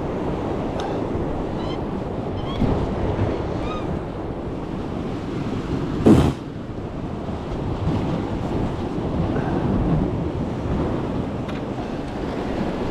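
Sea waves washing against rocks, with wind buffeting the microphone, as a steady noisy rush. A single short, loud sound stands out about six seconds in.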